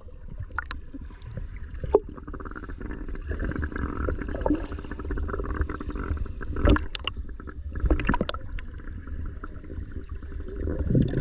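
Pool water sloshing and gurgling over a steady low rumble, with a few sharp splashes about two, seven and eight seconds in.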